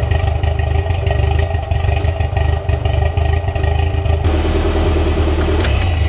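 Toyota MR2's turbocharged 3S-GTE inline-four idling roughly, with a change in tone about four seconds in. The rough idle comes from air leaking past loose hose clamps on the intercooler piping into the intake manifold, on an engine whose distributor timing is not yet set.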